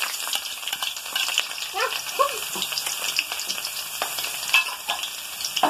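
Sliced ginger and garlic frying in hot oil with popped mustard seeds in a wok: a steady sizzle dotted with many small crackles and pops.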